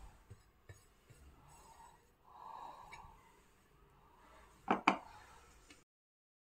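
Faint handling sounds from spreading topping on a cake layer: soft scraping and small clicks, with two sharp clicks close together about three quarters of the way through. The sound then cuts to dead silence.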